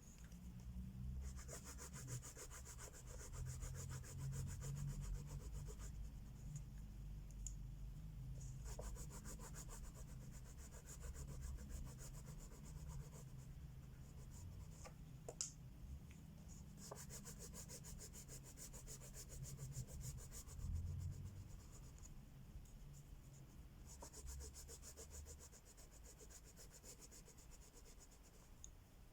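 Wax crayon rubbed quickly back and forth on coloring-book paper, shading in stretches of several seconds with short pauses between, and one sharp tick about halfway through.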